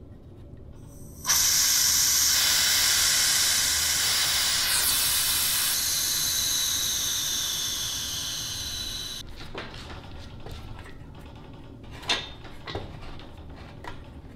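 Compressed air hissing out of a resin pressure pot as its red lever valve is opened to vent it: starts suddenly and loud, then dies away over about eight seconds as the pot empties of pressure. A few light clicks and knocks follow near the end.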